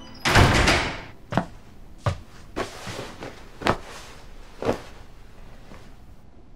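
Sound effects of a person moving about a bedroom: a loud rustling swish about half a second in, then a run of short soft knocks and thumps, roughly one a second, dying away near the end.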